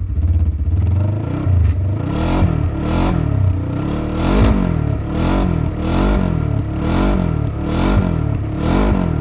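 Polaris RZR 900 side-by-side engine revving up and down over and over, its pitch rising and falling about every half second to second.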